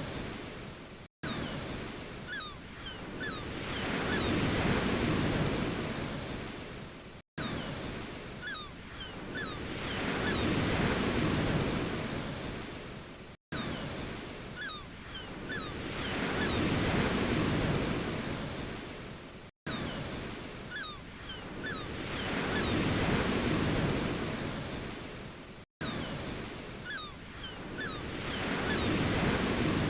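Ocean surf washing in and falling back, one swell about every six seconds. It is a short recording looped, with a brief dropout at each join, and a few faint short high chirps repeat in every loop.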